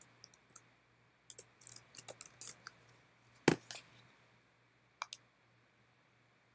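Computer keyboard keystrokes: a quick run of light key taps, one louder tap about three and a half seconds in, and two more taps around five seconds in.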